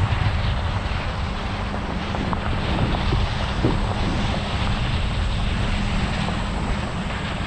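Large diesel farm machinery running steadily: a continuous low engine drone with mechanical noise over it.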